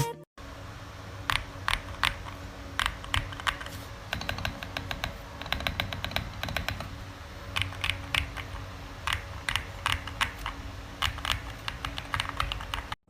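Typing on a mechanical keyboard fitted with lubed Akko V3 Cream Pro switches: irregular key clicks, with a quicker run of keystrokes in the middle, cutting off suddenly near the end.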